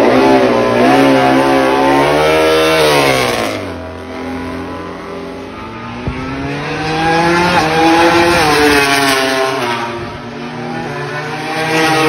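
Four-cylinder MotoGP racing motorcycle engines running loud at high revs. The pitch climbs through the first three seconds, falls away, then climbs again twice as bikes accelerate and pass.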